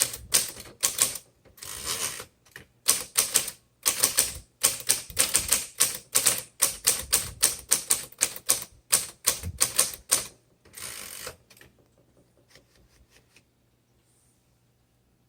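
A 1951 Royal Quiet De Luxe manual typewriter being typed on quickly: a fast run of sharp key and typebar strikes, with two longer rasping sounds, one about two seconds in and one near the end of the typing. The typing thins to a few faint clicks and stops a few seconds before the end.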